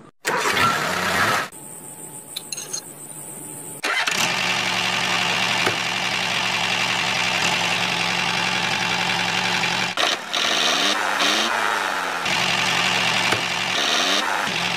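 An engine running steadily after a couple of short, abrupt sounds at the start, with a pitch that sweeps up and down for a moment around ten seconds in.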